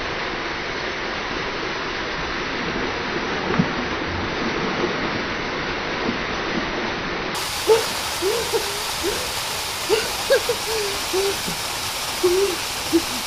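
Waterfall rushing steadily into a rock pool, with splashing as a swimmer plunges in. In the second half, a string of short hooting cries from the swimmer standing in the water.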